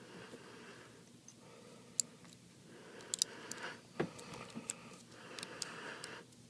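Faint, scattered small clicks and taps from tools and fingers working the new digitizer's ribbon cable into its connector on an iPad 3 motherboard, over a light room hiss.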